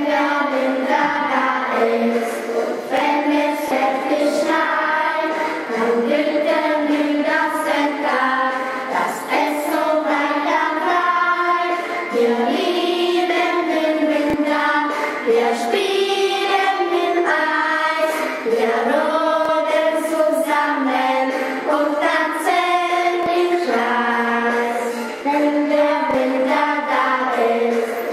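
A group of schoolchildren singing a song in German together, in one continuous melody.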